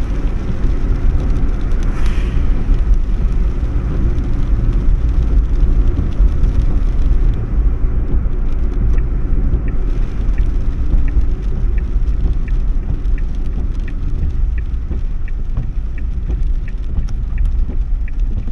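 Car cabin road noise: a steady low rumble of engine and tyres on a wet road. About halfway in, a turn-signal indicator starts ticking about twice a second as the car slows to turn off the road.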